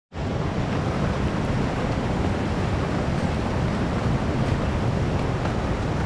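A loud, steady rushing noise with no clear pitch.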